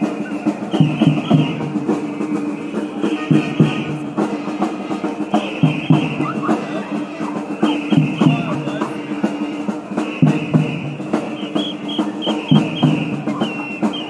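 Rhythmic drumming and percussion under a steady held tone, with clusters of short high notes recurring every second or two.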